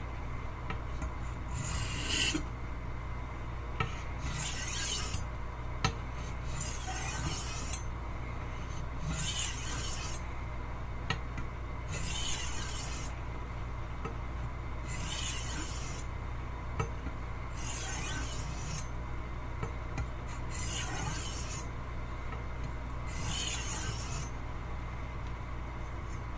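Wüsthof Classic chef's knife being drawn across a wet sharpening stone, a scraping stroke about every two seconds. The dull heel of the edge is being refreshed to raise a burr.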